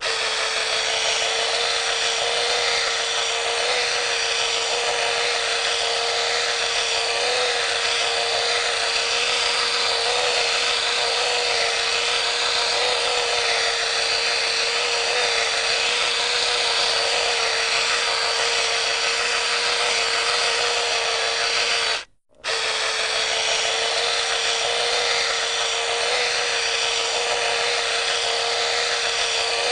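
Hard disk drive running, a steady whir with one constant whine over a hiss. It cuts out for a moment about 22 seconds in, then carries on unchanged.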